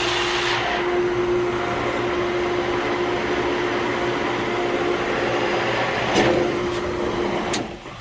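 Swimming-pool pump motor running with a steady hum over a rushing noise, switched on at the start and shut off abruptly about seven and a half seconds in. The pump will not prime: it is drawing air through a leak.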